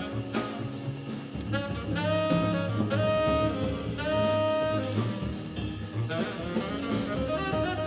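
Live jazz: a saxophone plays the lead melody, with a few long held notes in the middle, over piano, walking double bass and drum kit with cymbals.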